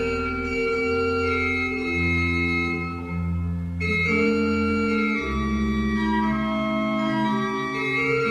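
Slow organ music: long held chords that move to a new chord every second or so.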